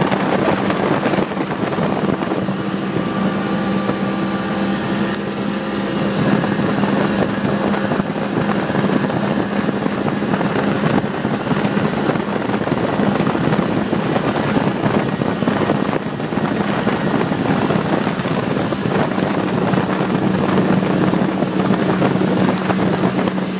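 Motorboat engine running steadily at speed with the boat on plane: a constant drone, with wind buffeting the microphone throughout.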